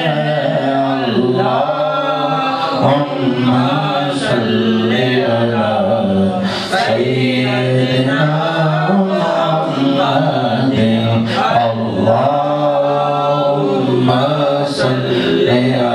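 A man singing in a slow chanting style into a hand-held microphone, long held notes that bend up and down in pitch.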